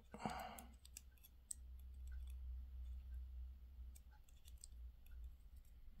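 Faint, scattered small metal clicks and taps as a thin tool works at a stuck driver pin in the fifth chamber of a brass padlock plug held on a steel plug follower.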